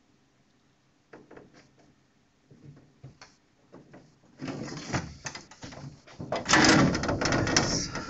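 Handling noise as a protective sheet cover is fitted on a CNC mill: a few light knocks, then a louder stretch of dense rustling and clattering, loudest about two-thirds of the way in.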